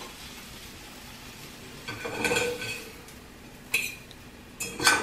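A cooking utensil scraping and clinking against a frying pan: a short scrape with a ring about two seconds in, then two sharp clinks near the end.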